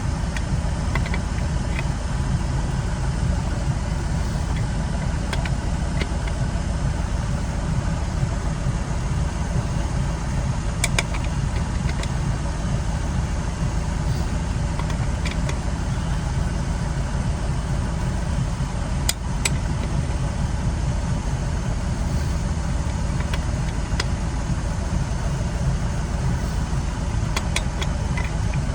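Steady low rumble of a running vehicle engine. A few sharp metallic clicks are heard along the way, as the spare's lug nuts are tightened with a lug wrench.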